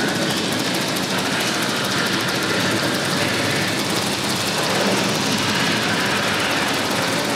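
Recorded Saturn V launch noise from the Apollo 11 launch simulation, played over a theater sound system: a loud, steady rocket-engine rumble.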